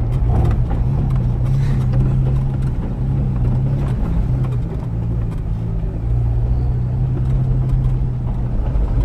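Jeep TJ engine running steadily under load as the Jeep is driven off-road, a low drone that rises and falls slightly in pitch.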